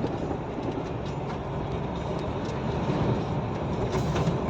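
Steady in-cab running noise of a loaded truck on the highway: engine and road rumble.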